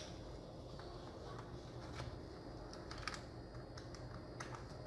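Faint, irregular small metallic clicks of a 3 mm Allen key working in the clamp screws of a scooter's handlebar throttle and brake levers as they are loosened.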